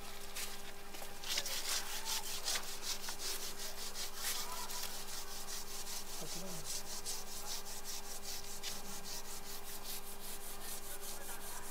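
A hand rubbing back and forth over an engraved grave inscription tablet, a fast run of dry scraping strokes, several a second, wiping the grime off the lettering.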